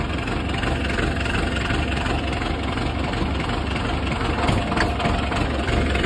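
Diesel tractor engine idling steadily with a low, even throb.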